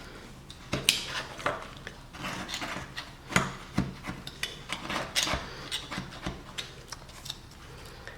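Hand tool scraping and filing along a freshly cut edge to clean it up, in short irregular strokes with a few sharp clicks.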